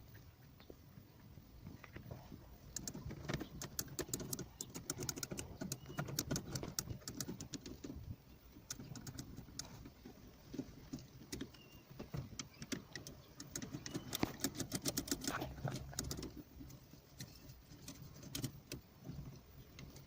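Rapid clicking and light metallic rattling from hand tools and small parts while a car's steering-wheel horn assembly is being taken apart to reach its contacts. The clicking is densest in the middle and thins out near the end.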